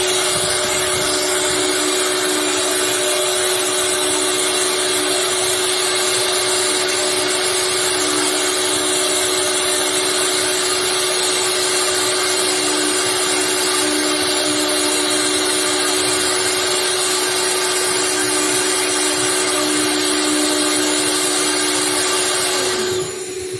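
Woodworking CNC router running: a steady high spindle whine over a loud hiss, which drops away abruptly near the end.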